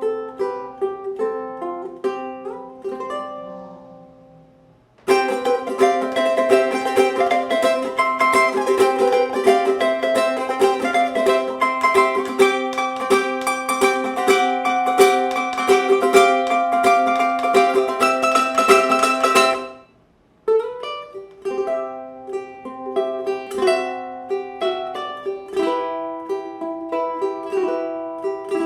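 Ohana tenor ukulele strung with D'Addario EJ88T Nyltech strings, played solo: picked notes that die away, then from about five seconds in a much louder, fuller passage that stops suddenly after about fifteen seconds, followed by picked single notes again.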